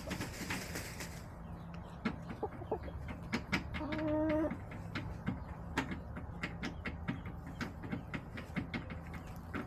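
Backyard hens pecking and scratching in dry dirt, a scatter of small sharp clicks, with a brief rustle at the start. About four seconds in, one hen gives a single drawn-out call lasting about a second.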